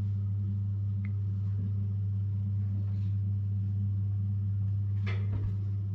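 A steady low hum that holds one even pitch throughout, with a weaker overtone above it.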